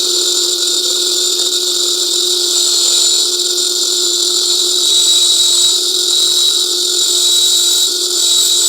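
A small high-speed power tool running steadily at constant speed: a high whine with a hiss over it.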